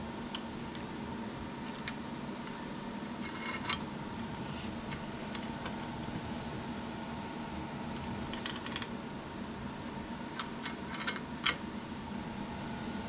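Bicycle roller chain clinking and rattling in scattered short bursts as the broken chain is handled and pulled off the chainring.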